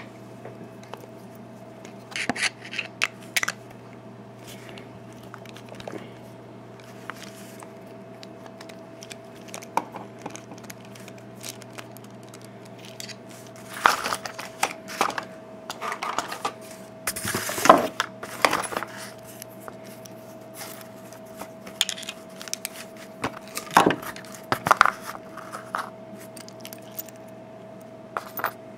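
Small metal lock parts clicking and clattering as an American 5200 series padlock is taken apart with a screwdriver to remove its cylinder, in several bursts of handling that are busiest about halfway through. A steady low hum runs underneath.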